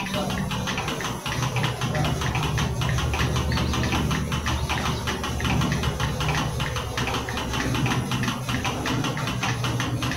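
Milking machine running: a steady low hum from the vacuum system with a fast, even ticking from the pulsators throughout.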